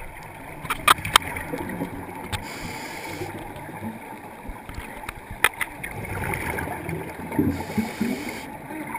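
Scuba breathing heard underwater: a short hiss twice, about five seconds apart, over low bubbling and gurgling, with a few sharp clicks in the first second or so and one about halfway.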